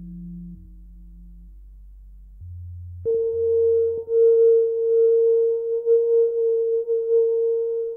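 Experimental electronic drone music made of held sine-like tones. Very low humming tones sit alone at first; about three seconds in, a louder steady mid-pitched tone cuts in and holds with a faint hiss around it.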